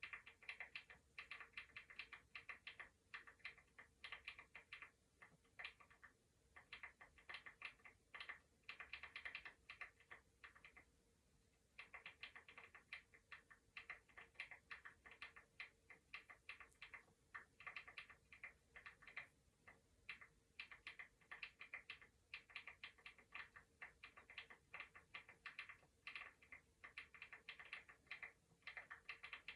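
Computer keyboard typing: faint, quick runs of key clicks with a short break a little past ten seconds in.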